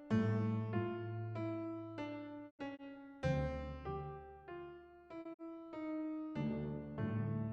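Background music: a slow piano melody with deep chords struck about every three seconds.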